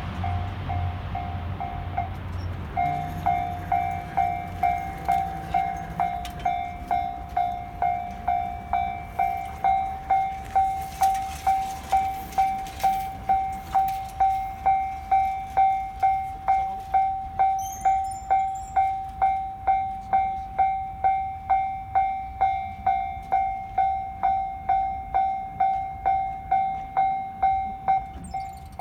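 Japanese railway level-crossing warning bell ringing, a repeating electronic ding about twice a second. It pauses briefly about two seconds in, then resumes and rings on steadily, the crossing still closed.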